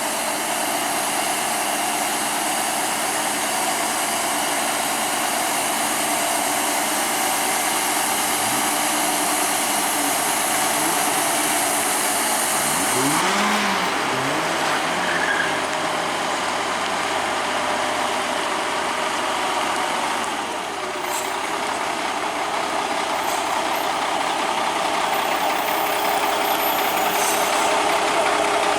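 Heavy trucks running on the road: steady engine noise under a dense hiss, with a few brief rising and falling pitch glides in the middle.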